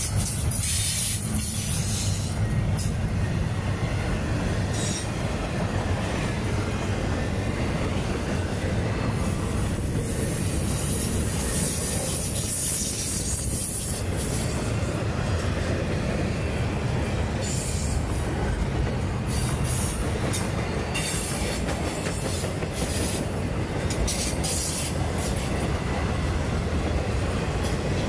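Intermodal freight train rolling past: a steady low rumble of cars and wheels on the rails, with high-pitched wheel squeal coming and going and clicks of wheels over rail joints.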